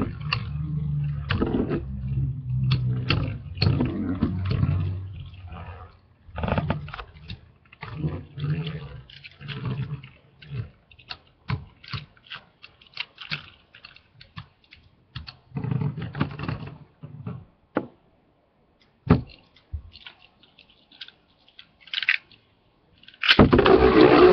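Two Beyblade battle tops, L-Drago Destroy and Cosmic Pegasus, spinning on a plastic stadium floor: a low whirring rumble at first, then many sharp plastic-and-metal clacks as they hit each other and the stadium wall, the clacks thinning out as the tops run down. About a second before the end, a loud steady rushing noise starts.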